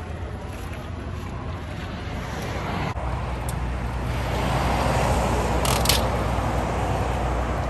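Old metal truck grill being worked loose and pulled out, with a short sharp metallic scrape about six seconds in. A steady low vehicle rumble starts about three seconds in.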